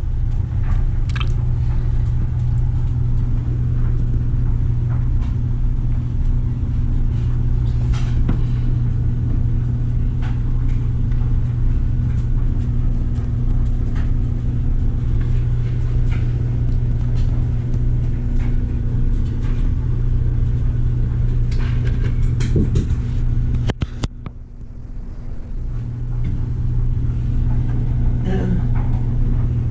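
A vehicle engine running with a steady low hum and scattered small clicks and knocks; about 24 seconds in the sound dips sharply for a second or two, then comes back.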